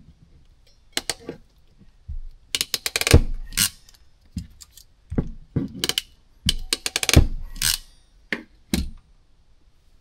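Hand crimping tool and wire stripper working on small wires and ring terminals: irregular sharp clicks and snaps, some in quick runs, as the terminals are stripped and crimped on.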